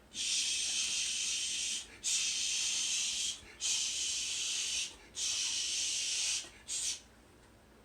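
A person making a vocal hissing sound effect for painting. There are four long hisses of about a second and a half each with short breaks between them, then a brief fifth hiss near the end.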